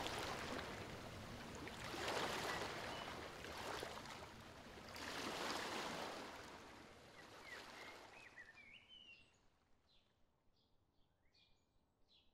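Small waves washing onto a sandy shore, swelling twice and fading out about eight seconds in, with a few faint bird chirps as it fades.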